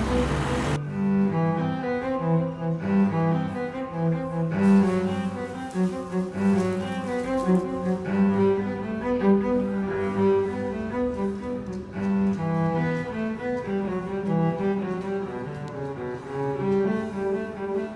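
Music of a low bowed string instrument playing a melody of held notes. Street noise cuts off less than a second in.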